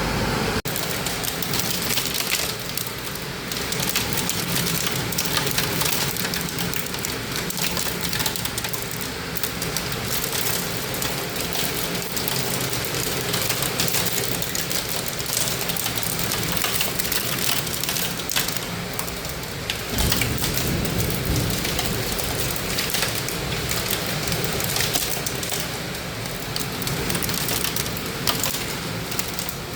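Heavy rain and hail pelting down in a storm: a dense, steady hiss made of many small hits.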